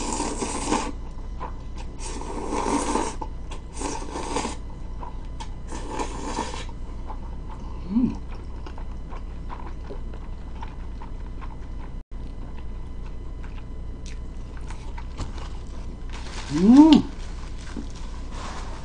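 Jjolmyeon noodles being slurped in four noisy pulls over the first seven seconds, then quiet chewing. A short hummed note comes about eight seconds in, and a longer hum rises and falls near the end, over a steady low hum.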